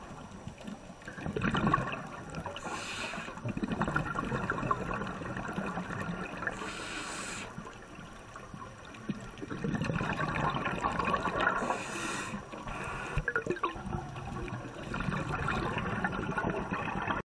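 Scuba breathing heard underwater: uneven bursts of bubbling and gurgling from exhaled bubbles, with three short hisses in between.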